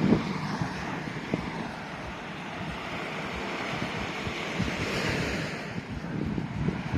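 Surf washing onto the beach, with one wave swelling and hissing about five seconds in, and wind buffeting the microphone.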